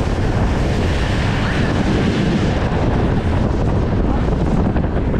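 Steady wind buffeting the microphone on a speedboat running fast over the sea, mixed with the rush of the boat's wake and spray along the hull.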